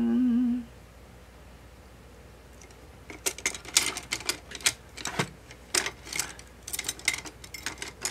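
A short hummed 'mm' at the very start, then from about three seconds in, irregular clicking and clattering of paintbrushes being rummaged through for a small one.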